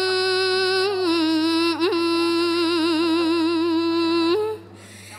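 A young woman's solo voice chanting Khmer smot, Buddhist chanted verse: one long held note that wavers in pitch, ending about four and a half seconds in with a brief pause for breath.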